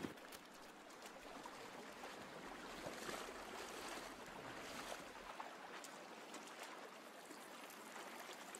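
Faint, steady rush of a shallow stream running over gravel, with a few soft splashes between about three and five seconds in as people wade across.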